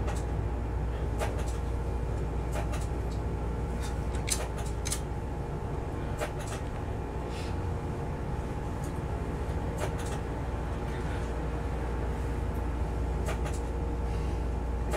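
Inside the driver's cab of an ICE TD diesel multiple unit on the move: a steady low diesel rumble with a constant engine hum, broken by irregular sharp clicks and rattles every second or two.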